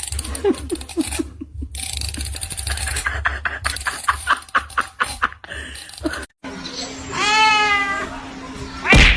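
A cat's long meow about seven seconds in, one call that rises and then falls. Before it comes a run of short quick sounds, laughter or squeaks, and a loud sudden noise near the end.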